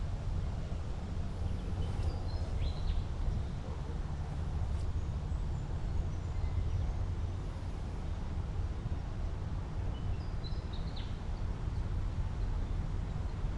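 Open-air ambience: a steady low rumble with a few short bird calls over it. The two clearest calls come about two seconds in and again about three-quarters of the way through.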